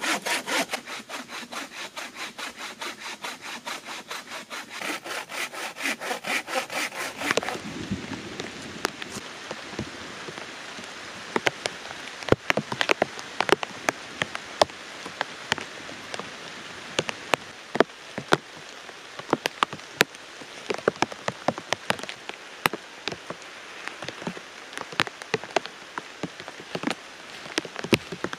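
Bow saw cutting through a log with quick back-and-forth strokes, cutting off suddenly about seven and a half seconds in. After that, rain falling steadily, with many sharp individual drops hitting.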